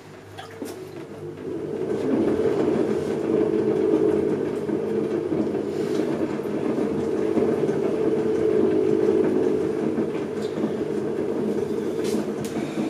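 Electric potter's wheel spinning while a palm presses and smooths a wet clay pad on the wheel head, making a steady rumbling drone. The drone swells about two seconds in and eases off near the end.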